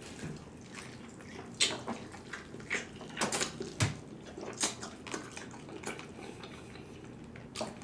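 Close-up eating sounds: wet chewing and mouth smacks on hot chicken in gravy, with irregular short clicks every half second or so.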